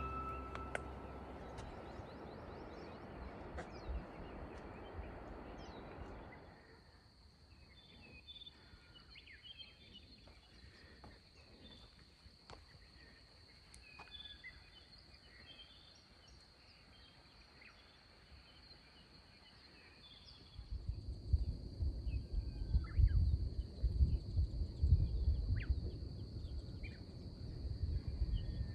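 Outdoor wind and faint birdsong. A soft rushing in the first few seconds gives way to quiet with scattered small bird chirps and a thin, steady high-pitched whine. In the last eight seconds or so, wind gusts buffet the microphone with a loud, uneven rumble.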